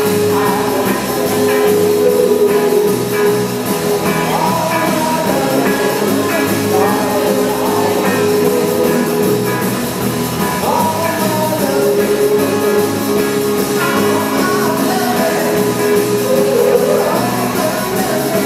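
Live rock band playing: electric guitars and drum kit with a singer's voice over them.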